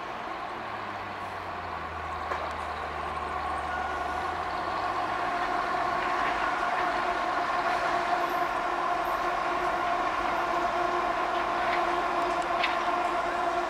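WDG4 diesel-electric locomotive (16-cylinder two-stroke EMD 710 engine) approaching at speed, its running note a set of steady tones that grow louder as it nears.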